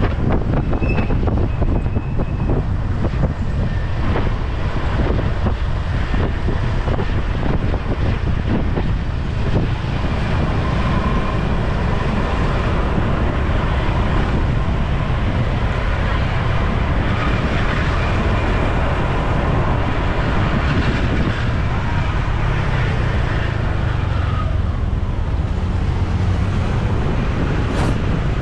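Wind rushing over the microphone of a rider moving through city traffic, with steady road and traffic noise underneath.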